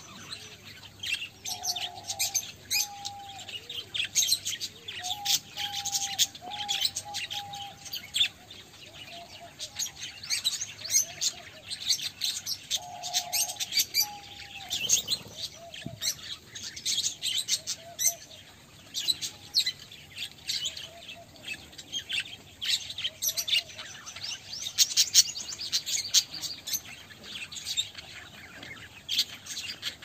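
A flock of budgerigars chattering, a dense, continuous run of quick high chirps and warbles.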